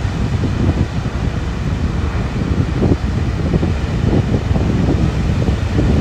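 Surf of small waves breaking and washing in along the shore, with steady wind buffeting the microphone.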